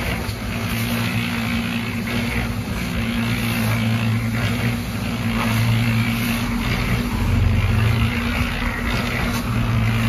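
Small electric concrete mixer running with a steady hum from its motor and drum drive. Gravel is being shoveled into the turning drum, with the scrape of the shovel in the gravel pile and the aggregate tumbling inside.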